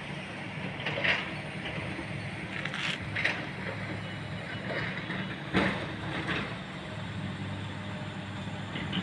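Steady low engine hum of construction machinery, broken by a few sharp knocks and clanks, the loudest about a second in, around three seconds in and just past halfway.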